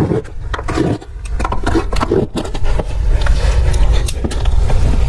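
Stair carpet being cut with a utility knife: a run of short scrapes over a steady low rumble.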